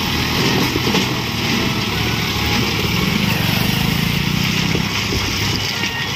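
Diesel engine of a CASE 770 EX backhoe loader running under load as the machine drives forward, pushing and spreading crushed stone with its front bucket. The engine note swells for a couple of seconds in the middle.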